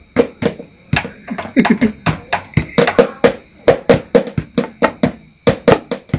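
Hands drumming on a hollow plastic object, a quick run of sharp slaps at about four to six a second in a marawis-style rhythm, with a brief break near the end.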